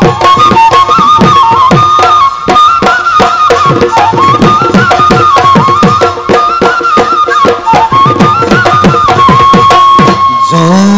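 Bihu dhol drums beating a fast, dense rhythm under a high wind-instrument melody, which ends on a long held note. Men's voices start singing just before the end.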